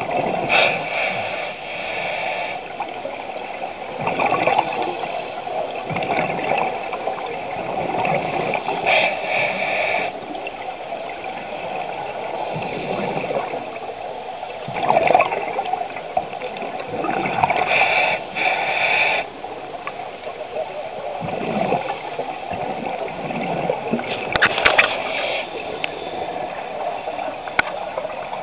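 A scuba diver's regulator breathing heard underwater: exhaled bubbles gurgle out in bursts every few seconds over a steady rush of water noise.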